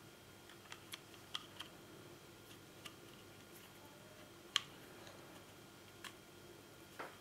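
Scattered small clicks and taps of plastic and metal parts being handled as a coiled spring is fitted into a chainsaw's plastic chain-brake handle, about eight in all, with one sharper click about halfway through.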